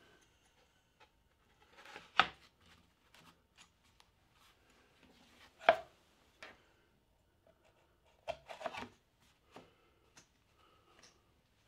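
Thin box-jointed plywood panels being set down and shifted on a wooden workbench: two sharp wooden knocks, about two seconds in and near the middle, then a quick cluster of lighter knocks, with soft sliding and rubbing of wood on wood between.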